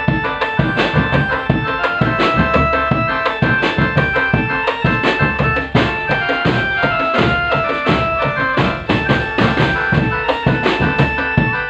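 Drum-band music: a fast, steady drumbeat under a melody of held high notes, playing without a break.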